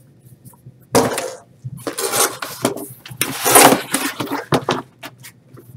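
Cardboard packaging being handled: a flat cardboard sheet and the box's cardboard insert scraping and rustling in several irregular bursts as they are shifted and lifted out of a shipping box.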